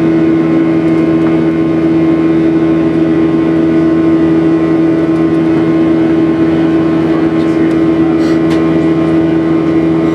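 Boeing 737-700's CFM56-7B turbofan engines heard from inside the cabin during the climb: a loud, steady drone with a strong low hum and a few steady tones over the rush of air.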